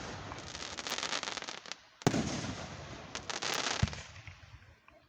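Aerial fireworks bursting: a rapid crackle of small pops, then a loud boom about two seconds in with more crackling after it, and another sharp bang near four seconds before the sound dies away.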